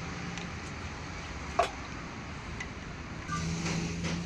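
Steady low background hum like passing traffic, with one sharp click about a second and a half in as a nut is fitted to an inline diesel injection pump. A steady low drone comes in near the end.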